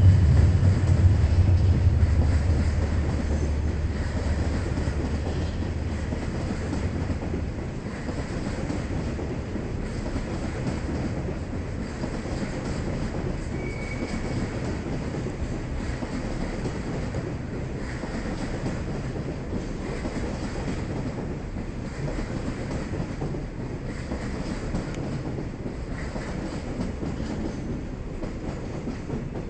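A freight train passing behind a DF200 diesel locomotive. The locomotive's low engine note is loudest at the start and fades over about seven seconds, followed by the steady rolling clatter of the freight cars going by.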